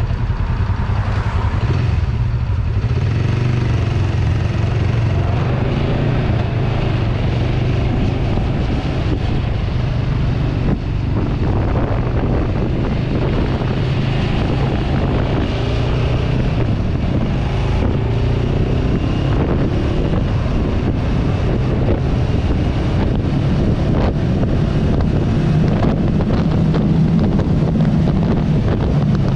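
1994 Kawasaki Vulcan 500's parallel-twin engine, heard close up from the handlebars: idling at first, then pulling away and running along the road. Wind buffets the microphone.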